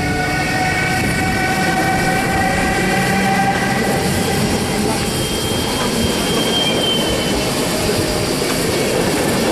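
A Siemens ES64U4 electric locomotive pulling out past, with several steady whining tones from its electric drive that fade over the first three seconds, followed by its passenger coaches rolling by with continuous wheel-on-rail noise. A brief high squeal of wheels sounds about five to seven seconds in.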